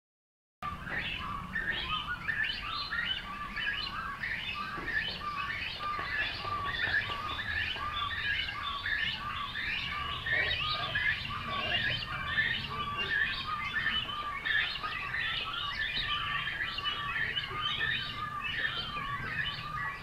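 Great Cormorant chicks begging in the nesting colony: a dense, continuous chorus of short, high, squeaky calls repeated over and over.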